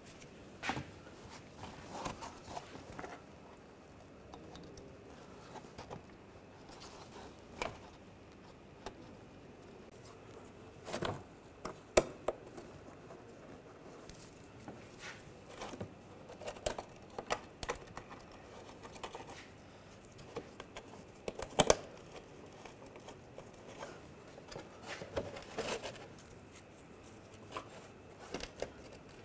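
Scattered light clicks, taps and rustling from gloved hands handling the car's underbody panel and shields and starting their fasteners by hand. Two sharper clicks stand out, one near the middle and one about three quarters of the way through.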